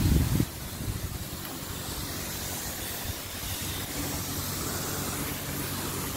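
Self-service car wash high-pressure lance spraying water onto a car body: a steady hiss of the jet with a faint low hum underneath.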